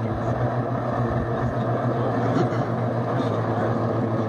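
Personal watercraft engine running steadily at low speed, a constant low hum with a rushing noise over it.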